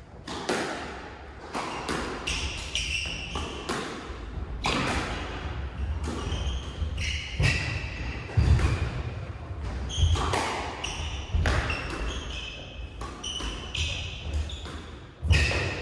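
A squash rally: the ball smacks off rackets and the walls at irregular intervals, with a few heavier thuds, and short high squeaks of shoes on the wooden court floor between shots.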